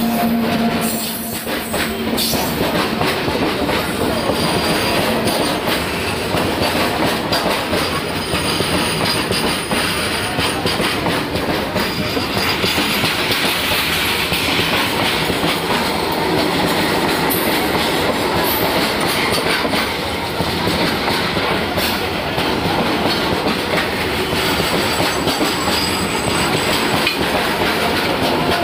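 Freight train wagons running past on the next track close by, their wheels clattering and rumbling steadily over the rail joints, with short high squeals from the wheels now and then. A steady low hum from the WAG-9 electric locomotive fades about two seconds in as the wagons take over.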